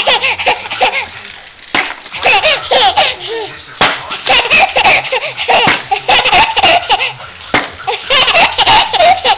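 Baby laughing hard: high, squealing belly laughs in several long bouts, with brief pauses between.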